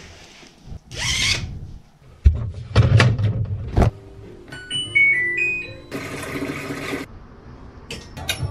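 Laundry-handling sounds: a rustling swish and several knocks, then a short run of electronic beeps stepping in pitch from a washing machine's control panel as its buttons are pressed. A second of rushing noise follows, and near the end a few sharp clicks as a clothes hanger is hooked onto a drying rail.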